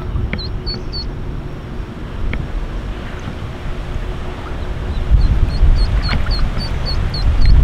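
Ducklings peeping: a short run of high peeps just after the start, then a steady string of about four peeps a second through the last two seconds, over a low rumble of wind on the microphone.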